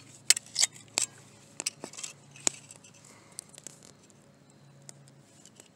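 A folding pruning saw with a broken handle being handled: scattered light metallic clicks and rattles, coming thick in the first couple of seconds and then thinning out.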